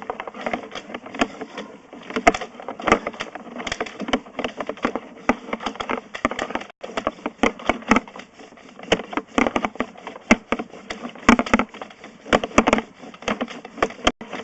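Sewer inspection camera and its push cable being fed down a drain pipe, with irregular clattering knocks and scrapes as the camera head bumps along the pipe.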